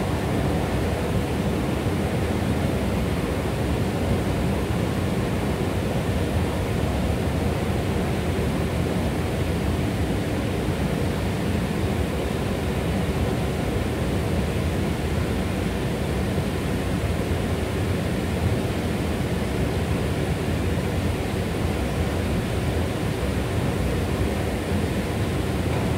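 Long subway-station escalator running, heard while riding down it: a steady, even, low-pitched drone with a faint hum.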